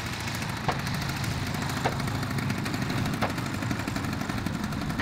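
Large petrol engine of a 50%-scale clipped wing Piper Cub RC plane, throttled back to idle for landing and touchdown on grass, running steadily. A short sharp tick sounds about once a second.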